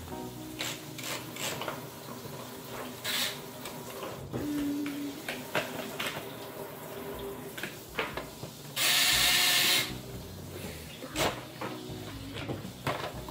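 Plastic clicks and knocks from a toy car-wash playset being handled, with a louder hissing rush of running water lasting about a second, a little past the middle.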